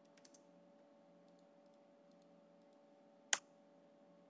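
Faint computer keyboard typing, a few soft key clicks, then one much louder click a little over three seconds in, over a faint steady hum.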